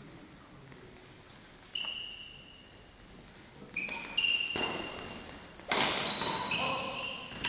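Badminton doubles rally in a sports hall: sharp racket hits on the shuttlecock and high squeaks of shoes on the court floor, ringing in the hall. There is one squeak about two seconds in, then a quick run of hits and squeaks from about four seconds in, loudest near six seconds.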